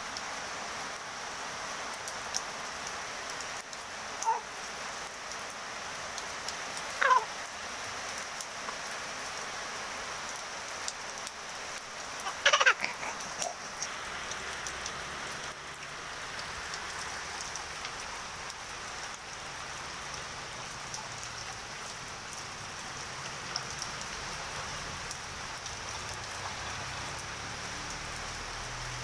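Steady rain falling on leaves and wet pavement. Three short calls from an animal cut through it, about four, seven and twelve seconds in, each sliding downward in pitch; the last is the loudest.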